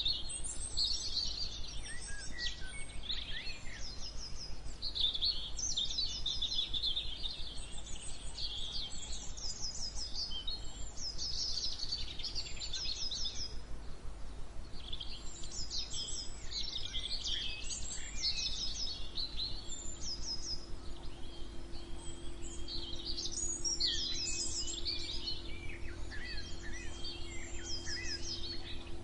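Several songbirds singing together in a morning chorus, with overlapping songs and chirps, many of them quick trills of repeated notes, over a low steady background hum.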